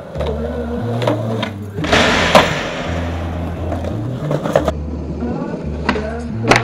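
Rock music with a steady bass line over skateboard sounds: tail pops and wheels knocking on concrete, and a scraping grind across the edge of a box about two seconds in.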